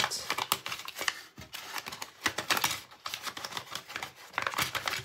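Plastic packaging crinkling with a rapid, irregular run of small clicks as little packets of diamond-painting accessories are handled and tucked back into a plastic bag.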